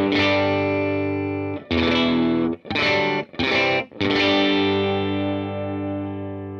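Clean electric guitar chords from a Fender Telecaster through a Vox AC15 2x12 valve amp. A ringing chord, then four short, cut-off chords between about 1.7 and 4 seconds in, then a final chord left to ring and slowly fade.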